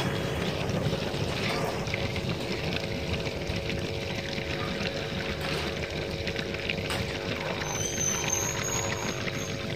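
Air bubbling steadily through the gasoline and water bottles of a homemade gas generator, over the steady hum of the small electric air pump that feeds it.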